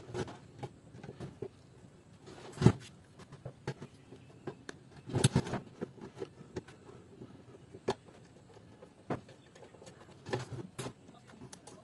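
Screwdriver working a screw out of a DVD player's metal cover: scattered small metallic clicks and knocks from the tool and the casing, with a louder knock a few seconds in and a cluster of knocks about halfway.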